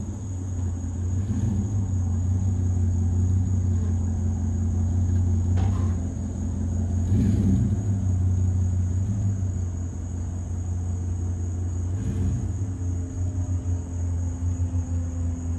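Ram pickup truck's engine running with a steady low rumble as the truck moves slowly across the lawn and pulls away.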